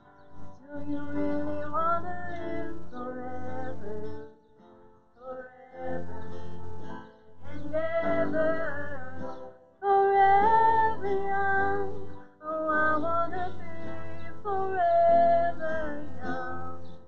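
A song: a voice singing a melody in phrases of a few seconds with short breaks between them, over guitar accompaniment and a steady bass.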